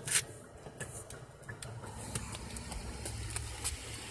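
Handling noise on a phone microphone as it is carried: a low rumble, one sharp click just after the start, and scattered light clicks.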